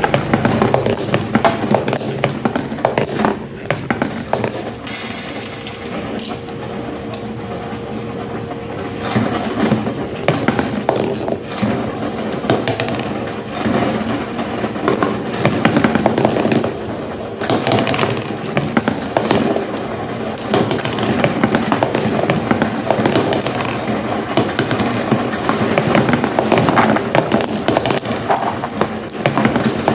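Marbles rolling and clattering down a marble run, a continuous stream of small clicks and rattles.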